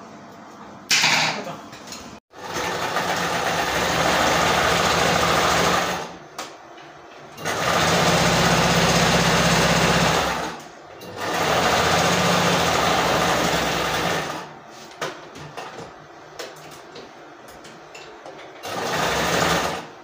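Electric home sewing machine stitching fabric in four runs of a few seconds each, with short pauses between them. There is a sharp click about a second in.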